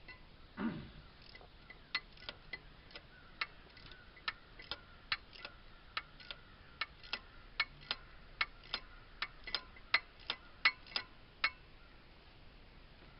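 Ratchet wrench clicking as the bolts of a new water pump on a 3.8L V6 are snugged up, about two or three sharp clicks a second that stop near the end. A brief low sound, falling in pitch, comes just under a second in.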